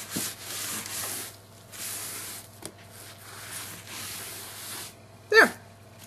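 Damp sponge rubbing over a grouted eggshell-stone miniature wall, wiping off the excess grout in several strokes. Near the end comes a short, loud squeak that drops sharply in pitch.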